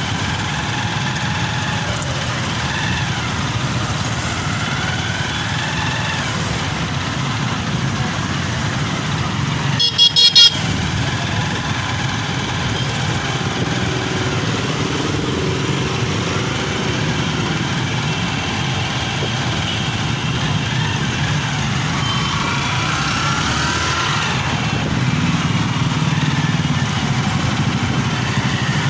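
A crowd of small motorcycles riding together, their engines running with rises and falls in pitch as they rev. About ten seconds in there is a short, loud burst of horn honking.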